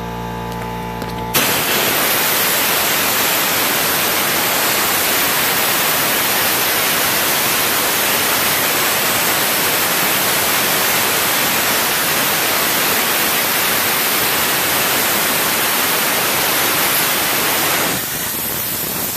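Pressurized abrasive blaster firing baking-soda media through its nozzle onto a painted steel frame, stripping the paint: a loud, steady hiss of air and media that starts suddenly about a second and a half in and eases a little near the end. Before it starts, a steady machine hum.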